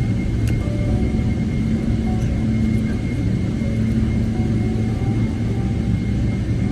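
Boeing 777-300ER jet engines running, a steady low rumble with a faint steady high whine.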